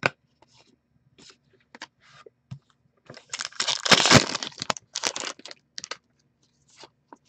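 A foil-wrapped trading-card pack being torn open and crinkled, a dense crackling tear lasting about two seconds near the middle, among soft clicks and rustles of cards being handled.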